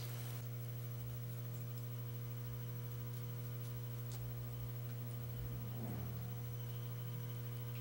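Steady electrical mains hum, with one faint click about four seconds in.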